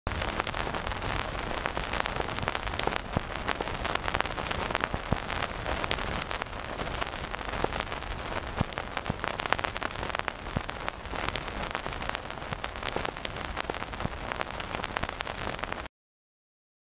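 Synthesized vinyl record surface noise from Ableton Wavetable's 'Vinyl Dirt Soft' noise oscillator: a steady hiss packed with fine crackles and pops. Its oscillators are modulated by LFOs to spread the noise in stereo. It stops abruptly near the end.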